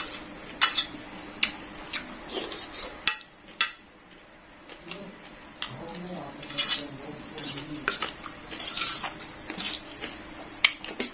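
Metal fork and spoon clinking and scraping irregularly against a stainless-steel tray as noodles are scooped up. Crickets chirp steadily underneath.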